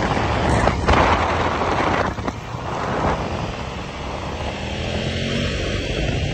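Motorcycle engines running at road speed under heavy wind rush on the microphone; the rush is strongest in the first couple of seconds. Later, faint rising engine tones show a bike accelerating.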